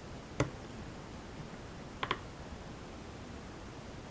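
Lock pick working the pins of a pin-tumbler challenge lock under tension: a few faint metallic clicks, one about half a second in and a quick double click about two seconds in.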